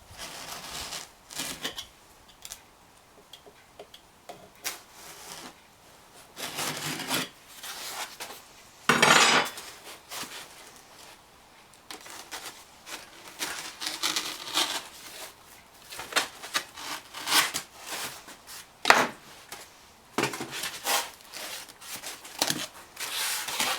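Irregular scraping, rubbing and light clatter of materials and small parts being handled and worked by hand, with a longer, louder scrape about nine seconds in.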